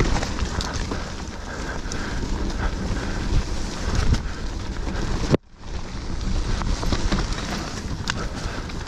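Mountain bike tyres rolling fast over a dirt trail, with the bike clicking and knocking over bumps and wind buffeting the action-camera microphone. A sharp knock about five and a half seconds in is followed by a brief cutout of all sound.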